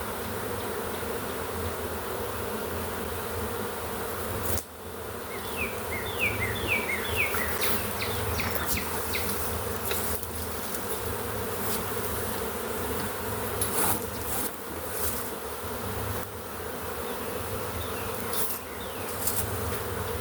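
Honey bee swarm buzzing, the dense steady hum of a great many bees in the air as the disturbed swarm regathers on its branch. The hum briefly drops out about four and a half seconds in, and short series of high falling chirps come and go over it.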